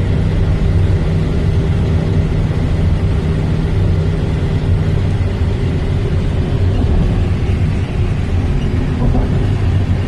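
Steady low drone of the van's engine and road noise, heard from inside the cab while driving.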